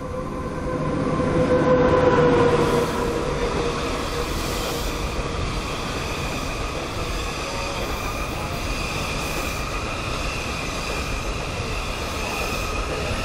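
SS8 electric locomotive passing at speed, loudest about two seconds in. It is followed by its passenger coaches rolling steadily by, a continuous rumble of wheels on rail with a steady high-pitched wheel squeal above it.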